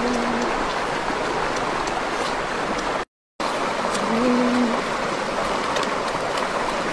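Stream water rushing over rocks, a steady even wash. The sound cuts out briefly about three seconds in. A short low hum, like a closed-mouth voice, is heard twice.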